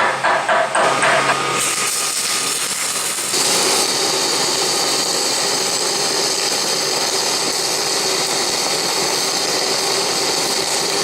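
Rapid tapping for about the first second, then the steady crackle and hiss of a Thermal Dynamics Fabricator 252 MIG welder laying a bead, growing louder about three and a half seconds in.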